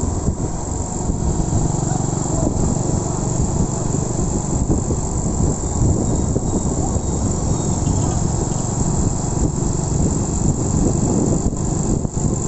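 Honda Win 100 single-cylinder motorcycle running while riding, under a steady low rumble of wind on the microphone. A constant high-pitched whine runs throughout.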